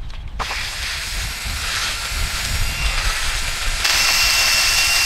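Steady loud hiss, mostly high-pitched, starting about half a second in. It grows louder a little under four seconds in, with a thin high whistle riding on it.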